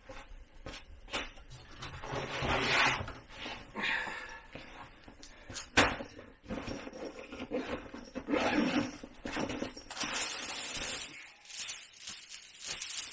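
Gear being handled: scraping and rubbing with scattered knocks, and one sharp clack about six seconds in. From about ten seconds a bright, high, hissy jingle comes in.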